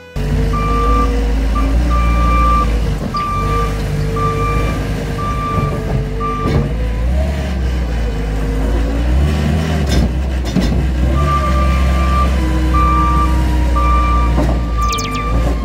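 Gehl R190 skid steer loader running with its sweeper broom attachment, the engine steady with a pitch that drifts up and down as it manoeuvres. A reversing alarm beeps at an even pace, stopping about six seconds in and starting again near the end.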